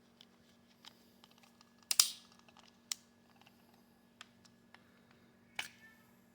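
Scattered light clicks and taps of small hard parts being handled, with a sharper click and short scrape about two seconds in and another distinct click near the end.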